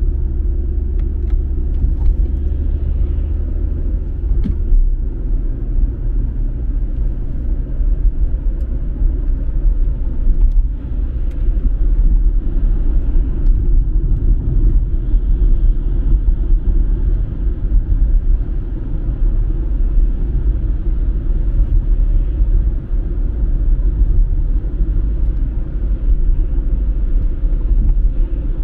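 Car driving at steady speed, heard from inside the cabin: a steady low rumble of road and engine noise. A deeper hum under it drops away about five seconds in.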